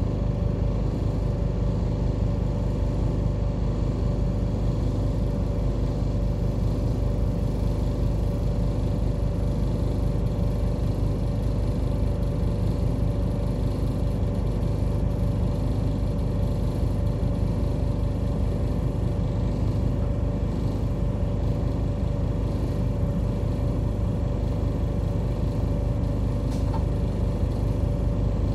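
Route bus engine running steadily, heard from inside the passenger cabin, with no revving.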